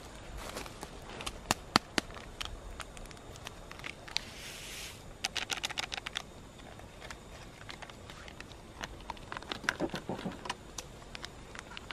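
Small handling noises: scattered clicks and taps as an instant-coffee sachet is handled and emptied into a steel camp cup. A short rustle comes about four seconds in, followed by a quick run of clicks, and another cluster comes near the end.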